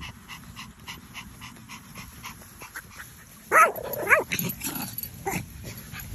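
French bulldog puppy giving two loud wavering vocal calls about three and a half seconds in, then a shorter one a second later. Before them, soft quick rhythmic sounds come about four times a second.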